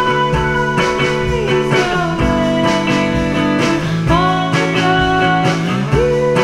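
Background music: a guitar-led instrumental with notes that slide in pitch, over a steady beat.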